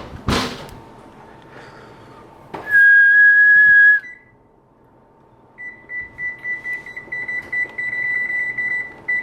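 A knock right at the start, then an oven's electronic control panel beeping: one long, loud beep lasting over a second, and after a pause a quick string of short, higher beeps as the 20-minute timer is keyed in.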